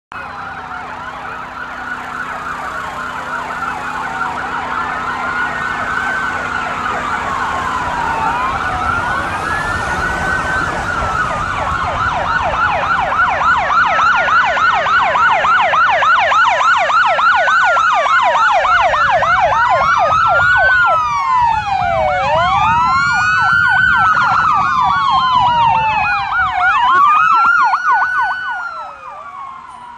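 Several emergency-vehicle sirens sounding together as a line of ambulances, fire engines and police vehicles drives past, slow wails and fast yelps overlapping over the rumble of the vehicles. They grow louder as the convoy approaches and fall away near the end.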